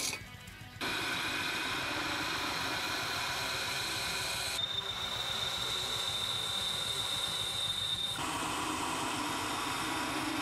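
Drill press running with a twist drill boring through a steel plate: a steady machine whir with cutting noise, starting just under a second in. A high, steady squeal from the bit sounds through the middle part and stops abruptly about three-quarters of the way in.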